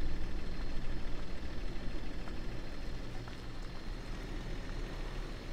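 Car engine idling with a low steady hum that slowly gets quieter.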